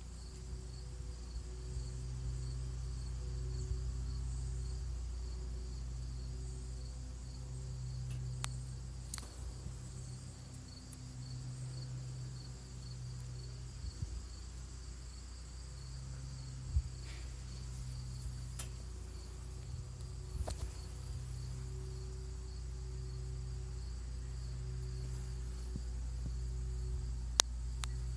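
A steady chorus of chirping insects in a rapid, even pulse, over a low rumble, with a few sharp clicks scattered through.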